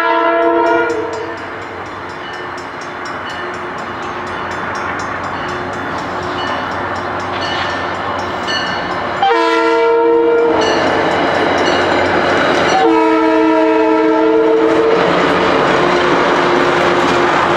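Commuter train's chord horn sounding for a grade crossing: a blast ending about a second in, then two long blasts about nine and thirteen seconds in, with the horn note held on near the end. Crossing bells ding rapidly through the first half, and the rumble of the train passing over the rails builds and stays loud from about nine seconds in.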